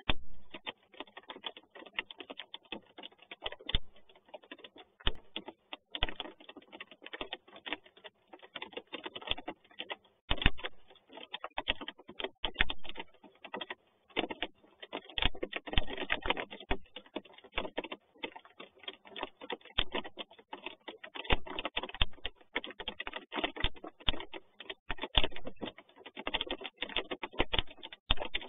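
Raindrops pattering: a dense, irregular ticking of drops, heavier in spells.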